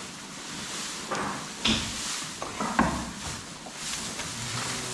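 Rustling and scraping handling noise with a few sharp knocks, the loudest about a second and a half and nearly three seconds in.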